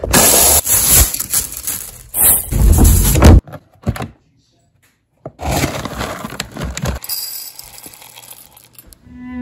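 Kitchen handling noises: the plastic parts of a food processor clattering, then dry dog kibble pouring and rattling into a ceramic bowl.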